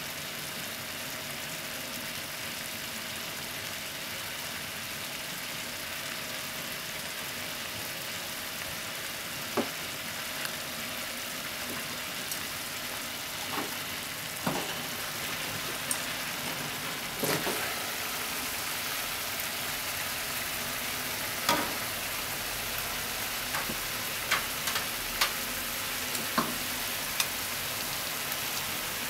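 Kakiage fritters simmering in mentsuyu broth with beaten egg in a frying pan: a steady sizzle with scattered sharp pops, more of them in the second half.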